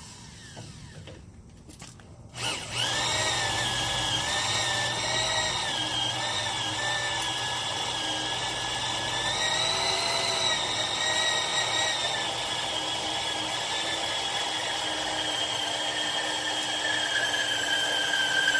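Power drill turning a Champion 5/8-inch frame reamer step bit through 1/2-inch steel angle iron, enlarging an oiled pilot hole. It starts cutting about two and a half seconds in and runs steadily with a high whine whose pitch wavers, sinking slightly near the end.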